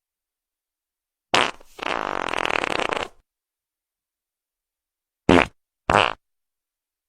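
Wet fart sound effects: a short blast about a second in, then a longer sputtering one, and two short quick ones near the end.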